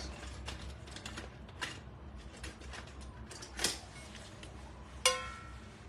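A round baking dish being handled on a countertop: a few soft knocks, then one sharp clink that rings briefly near the end.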